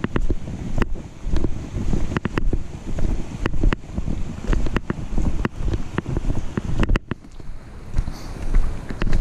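Walking footsteps on a dirt trail, heard through a camera clipped to a backpack chest strap: a low rumble of rubbing and handling noise that pulses with each stride, with sharp clicks about once or twice a second as the clip and strap jolt. The clicks thin out about seven seconds in.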